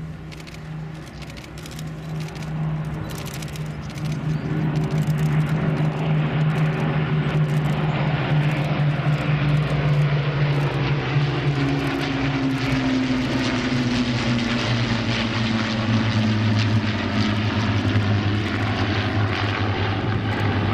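Formation of Rolls-Royce Merlin V-12-engined warbirds (an Avro Lancaster, a de Havilland Mosquito, a Supermarine Spitfire and two Hawker Hurricanes) flying past, a steady propeller-engine drone that grows much louder about four seconds in. From about halfway the engine note drops in pitch as the formation passes.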